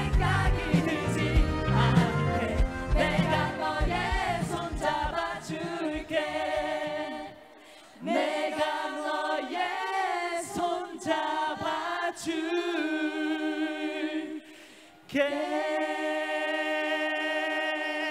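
Voices singing a song over a backing track with bass and drums. About six seconds in, the backing drops out and the voices carry on alone. After a short break near the end they close on one long held note.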